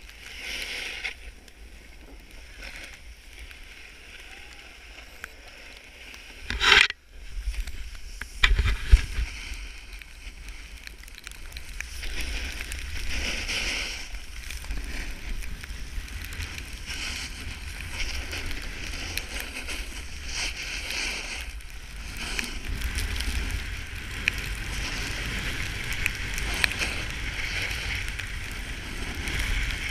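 Snowboard sliding and scraping over snow, with wind buffeting the microphone, growing louder from about twelve seconds in as the rider picks up speed. A loud knock comes about seven seconds in, and another shortly before nine seconds.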